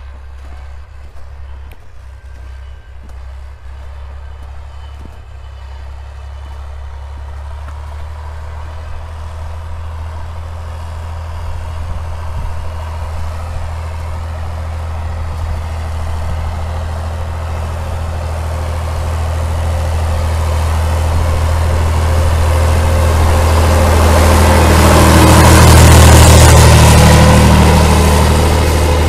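HTZ T-150K tractor's diesel engine running steadily under load as it pulls a tillage implement across the field. It grows steadily louder as the tractor approaches, is loudest as it passes close about three-quarters of the way through, then eases slightly.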